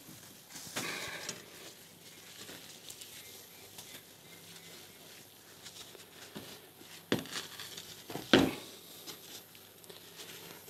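Quiet kitchen clean-up sounds: a cloth being rubbed over the hob and worktop, with two sharp knocks against cookware, about seven and eight and a half seconds in, the second the loudest.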